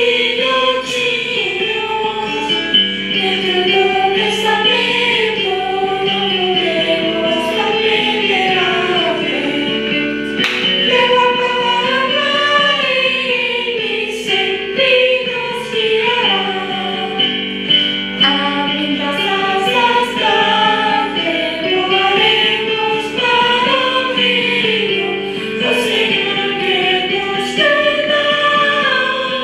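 A Christian song sung by a group of voices, a continuous melody over accompaniment.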